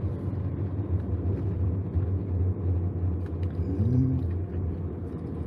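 A steady low rumble, with a brief low voiced hum about four seconds in.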